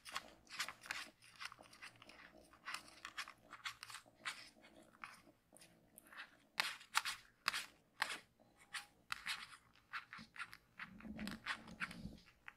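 Kittens wrestling on a fleece and towel bed: irregular, crisp scratching and rustling of paws and claws on the fabric, several scrapes a second, with a brief low rumble near the end.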